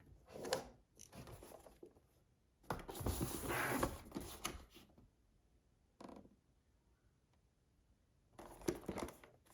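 Keyboard packaging being handled and opened: rustling and scraping in several separate bursts, the longest lasting nearly two seconds about three seconds in, with a few sharp clicks near the end.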